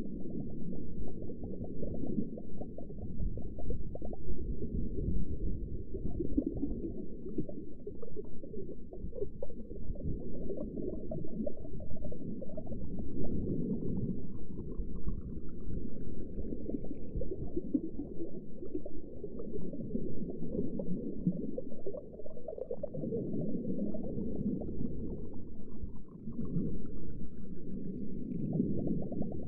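Underwater ambience: a muffled, low bubbling and gurgling wash, with a faint rising whistle-like tone twice, about halfway through and near the end.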